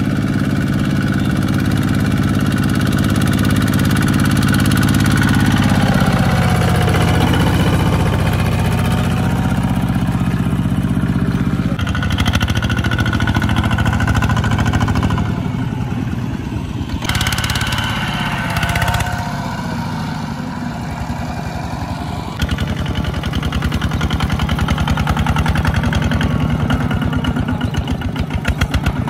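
Single-cylinder diesel engine of a two-wheel walking tractor, running steadily while it pulls a trailer loaded with rice sacks. The engine speed shifts several times.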